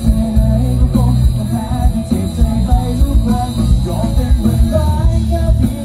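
Live band music heard through the stage PA: singing over bass guitar and drums, with a heavy low end.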